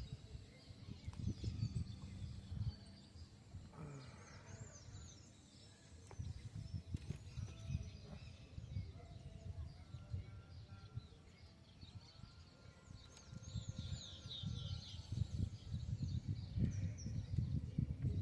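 Small birds chirping in short, quickly rising and falling calls, a few seconds in and again more densely in the second half, over an uneven low rumbling noise.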